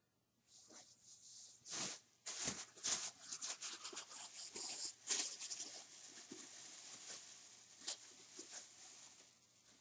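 Thin plastic shopping bag rustling and crinkling as it is handled, in a quick run of short crackles that thins out toward the end.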